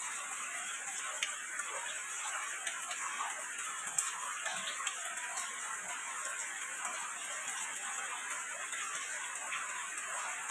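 Light rain falling at night: a steady hiss of drizzle with scattered single drops ticking, one sharper drop about four seconds in.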